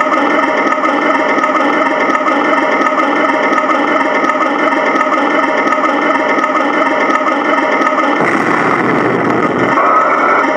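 A 1/16 scale Tamiya RC tank running close by: a steady whirring hum with an even rhythmic chug. A deeper rumble joins in for a couple of seconds about eight seconds in.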